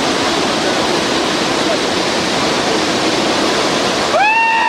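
Steady rush of a fast whitewater river below. Near the end, a short high-pitched yell rises and holds for about half a second.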